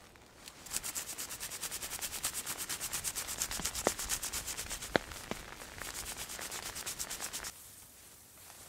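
Dry reed thatch rubbed and scraped by hand in quick, even strokes, about six a second, with two or three sharp snaps in the middle, like stiff stems cracking.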